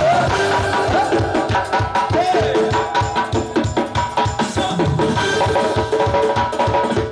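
Live band music: a doira frame drum played in quick, driving strokes, with a fast run in the middle, over electronic keyboards holding a melody and chords.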